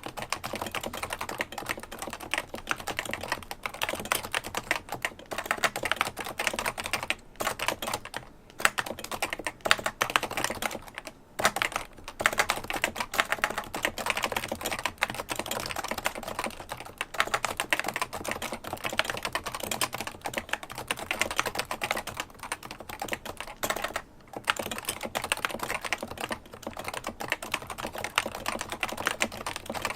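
Fast, continuous typing on a Realforce 108UG-HiPro keyboard with 45 g Topre switches (rubber-dome, electrostatic capacitive), with a few brief pauses between runs of keystrokes.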